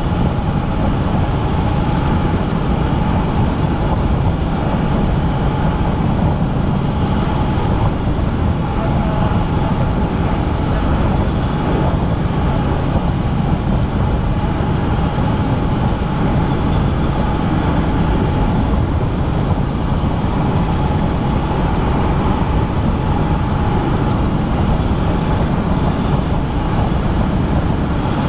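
Helicopter in flight: steady, loud rotor and engine noise, heavy in the bass, with a constant high whine over it.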